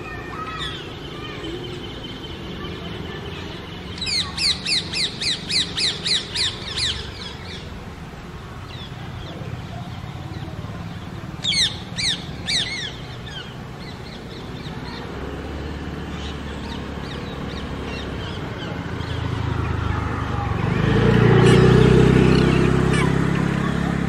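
Rose-ringed parakeet giving a quick run of about ten shrill, downward-sweeping screeches, about three a second, then three more a few seconds later. Near the end a low rumble swells up, becomes the loudest sound, and eases off.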